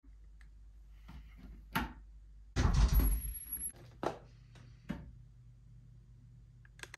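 A door being opened with a loud rattle lasting about a second, among a few knocks and sharp clicks; a low steady hum sets in just after the door.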